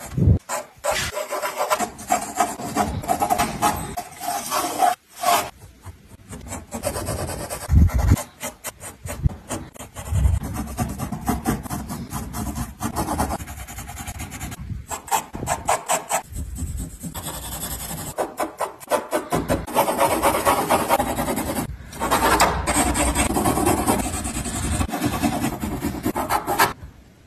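Graphite pencil scratching on drawing paper in quick, dense runs of sketching and hatching strokes, with a few short pauses.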